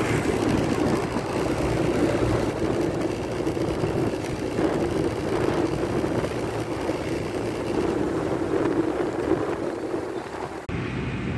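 Steady drone of a vehicle engine running, with traffic noise and no horn sounding. Near the end the sound drops briefly and abruptly changes character.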